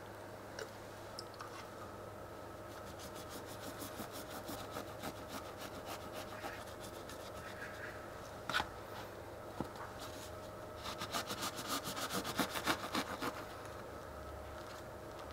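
A knife sawing through a soft bread roll on a plastic cutting board in quick back-and-forth strokes, most dense a few seconds before the end. Softer scraping and a single click come earlier.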